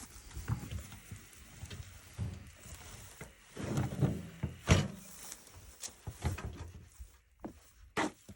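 Handling noises: rustling and scraping with several knocks, the loudest a sharp wooden-sounding knock a little under five seconds in.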